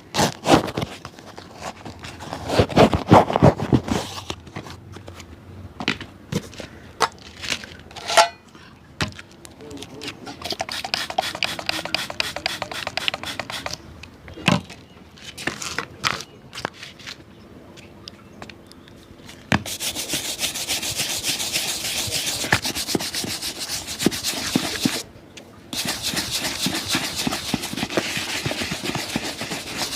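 Hand tools working on an old shoe: scattered taps and short bouts of scraping, then, about two-thirds in, a steady run of fast rubbing strokes, broken once by a brief pause.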